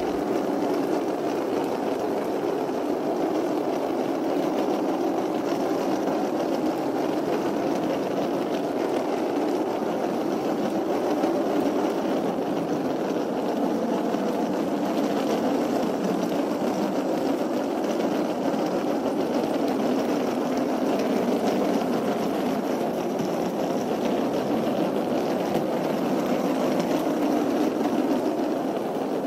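Wheels of a trolley suitcase rolling over a rough road, a steady rattling rumble.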